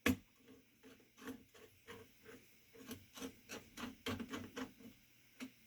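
Screwdriver turning a spring-loaded mounting screw on a CPU cooler's bracket: a faint, uneven run of small clicks and ticks, with a sharper click at the start.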